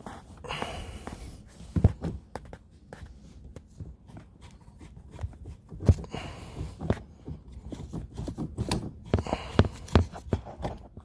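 Hand-work noises under a kitchen sink as the dishwasher's supply and drain lines are shut off and disconnected: scattered knocks and clicks of tools and fittings, with short stretches of scraping and rustling.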